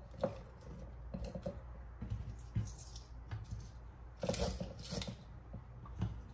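Scattered light taps and rustles of cut scallion pieces being dropped by hand into a plastic blender cup, a handful at a time, with hands brushing over a wooden cutting board; the busiest bit comes about four to five seconds in.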